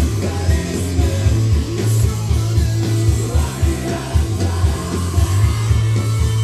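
Rock music with electric guitar, a pulsing bass line and some singing.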